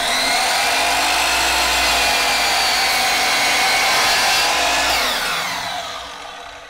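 DeWalt DW716 12-inch miter saw switched on and running at full speed while cutting a miter through a wooden board, a steady whine. About five seconds in it is switched off and the blade winds down, its pitch falling as it fades.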